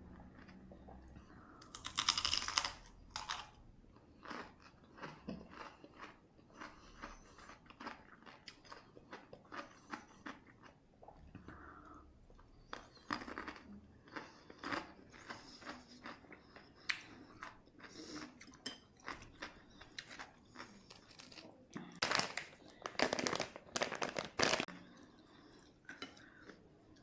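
Close-up crunchy biting and chewing of a cucumber boat: many short crisp crunches, loudest in two bouts, near the start and again near the end.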